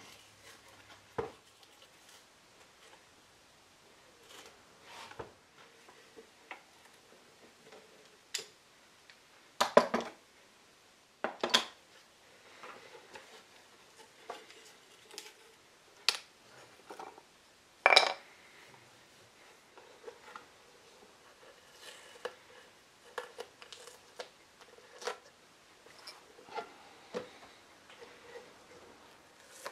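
Bench-work handling sounds: scattered light taps and clicks as a thin wooden strip is fitted against a wooden box and taped in place. A few louder sharp knocks come about ten, eleven and a half and eighteen seconds in.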